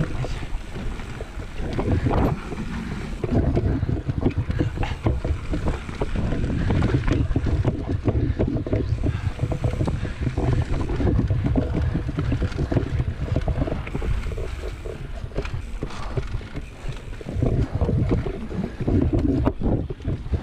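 Mountain bike being ridden along a dirt singletrack: wind buffeting the camera microphone over a low rumble of tyres on the dirt, with frequent rattling and clatter from the bike over bumps.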